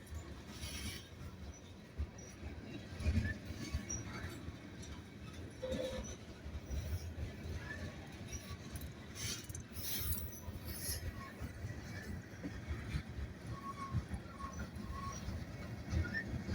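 Union Pacific train's railcars rumbling low and steady, with scattered irregular clanks and knocks.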